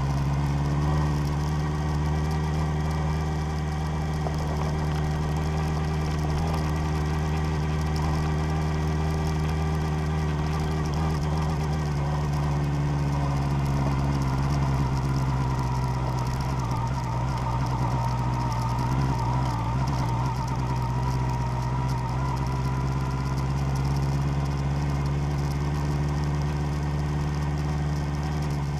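Vehicle engine running at a steady pitch and level while driving, with only slight changes in pitch.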